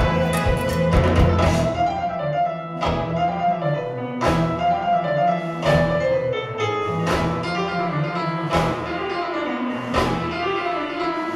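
Live jazz-funk band playing sustained chords, with a strong ensemble hit about every second and a half.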